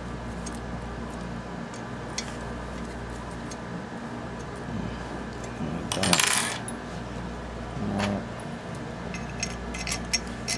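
Small metal parts clinking as metal standoffs are handled and fitted back into the frame: a loud metallic jingle about six seconds in, with light clicks and taps of metal on metal scattered around it, over a steady background hum.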